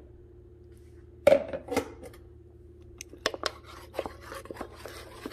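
Metal spoon stirring chicken drumsticks and a flour-and-water slurry in a crock pot, clinking and scraping against the pot in a run of short clicks from about three seconds in, after a single louder knock a little over a second in.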